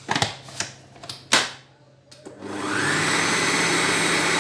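A few knocks and clicks, then about two seconds in an electric food mixer's motor starts, speeds up and runs steadily, working a beaten egg into crumbly flour-and-butter pastry dough to bind it.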